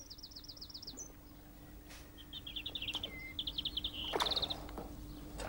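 A small songbird singing: three short, rapid trills of high repeated notes, with a faint steady hum underneath.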